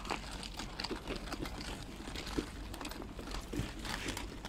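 Footsteps crunching and rustling through dry fallen leaves on a dirt path, an irregular run of small crackles.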